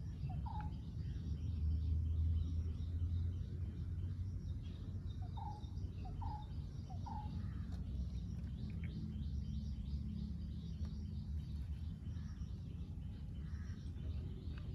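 Outdoor ambience: birds calling, with a few short rising chirps, three of them in quick succession midway through, over a steady low rumble that is loudest about two seconds in.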